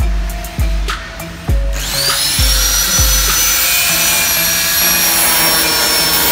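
A small handheld electric power tool spins up about two seconds in with a rising whine, then runs steadily at a high pitch. Background music with a steady drum beat plays throughout.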